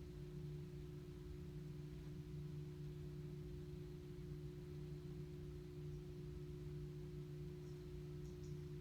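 A steady low hum of a few unchanging tones, with a few faint high ticks near the end.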